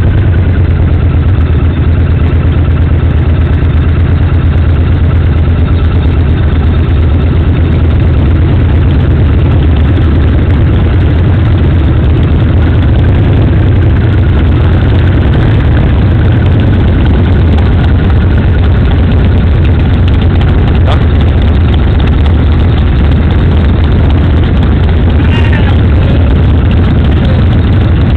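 Motorcycle engine idling and running at low speed, a loud, steady low hum close to the microphone.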